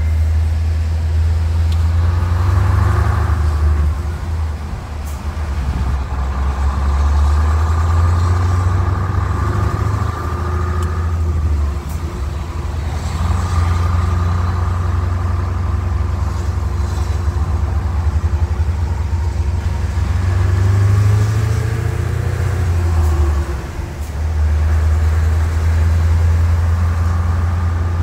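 Scania V8 diesel truck engine with an open-pipe exhaust, heard from the cab as it pulls under load. The engine note drops briefly three times, as at gear changes, and rises in pitch once near the end as it accelerates.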